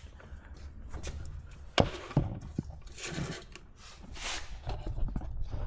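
A sharp knock about two seconds in and a softer click just after, with a few brief rustles and scrapes over a low steady hum.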